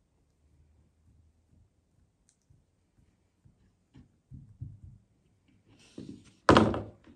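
Quiet handling of dough being pressed into a wire mesh strainer, with a few light taps, then a brief rustle and one loud thump near the end as the shaped dough is peeled off the mesh.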